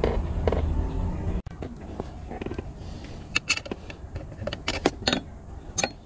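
Hand tools clinking on the bolts and metal linkage of a manual gear lever assembly as it is unbolted: a handful of short, sharp metal clicks in the second half. Before them a low hum stops abruptly about a second and a half in.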